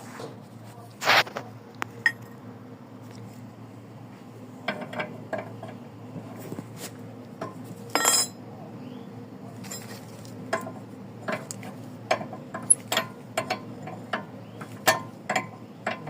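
Irregular sharp metallic clicks and clinks from a car's steering as the wheel is worked, a few of them much louder, over a steady low hum. The clicking is the steering fault being demonstrated.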